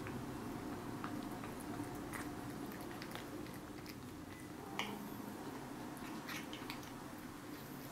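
A cat chewing and smacking on pancake, with small scattered mouth clicks, one sharper about five seconds in, over a steady low room hum.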